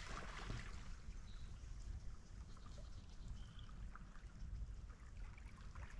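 Faint water trickling and sloshing around a kayak, over a low steady rumble.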